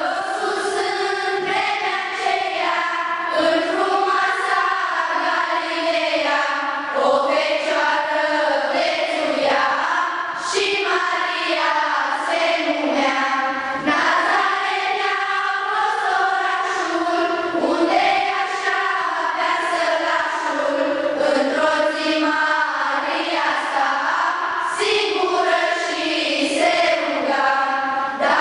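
A choir of high voices singing together in several parts, with no instruments audible beneath it.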